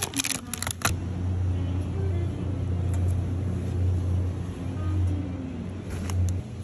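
Plastic packaging and a plastic shopping basket clicking and knocking in the first second, then a steady low rumble that stops just before the end.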